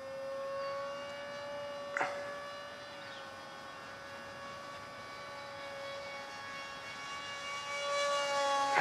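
Distant R/C model airplane's motor and propeller whining at a steady pitch, growing louder toward the end as it comes closer. A brief click about two seconds in.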